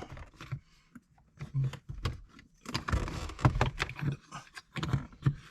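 Irregular plastic clicks, knocks and scraping as the shift boot cover and shift knob of a Ford Focus RS are pried and worked loose by hand.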